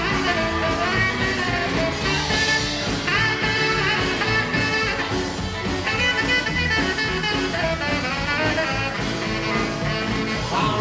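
Rockabilly band playing live: a saxophone takes an instrumental break over slapped upright bass, drums and guitars, with no singing.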